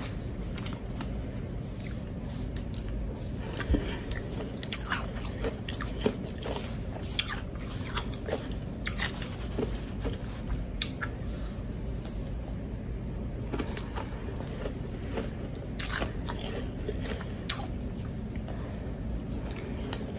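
Powdery blender-crushed ice being bitten and chewed close to the microphone: irregular crisp crunches, some much louder than others.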